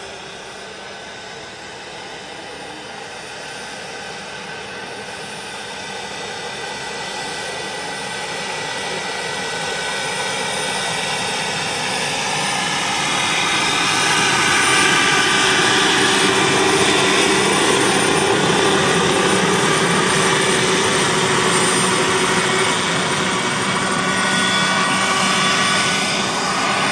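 Turbine-powered radio-controlled Mi-24 Hind model helicopter running: a steady whine over a rushing noise, growing louder over the first half and then holding.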